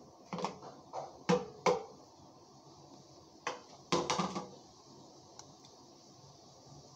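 A spoon clinking against a ceramic bowl while eating, in a cluster of quick knocks in the first two seconds and another about four seconds in, some with a short ring.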